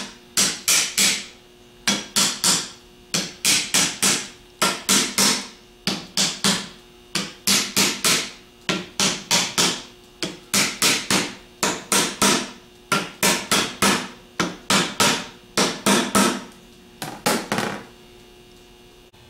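Hammer tapping a Ford 6G alternator's stator down into the front plate, worked around in a circle: sharp taps in quick clusters of two to four, stopping near the end.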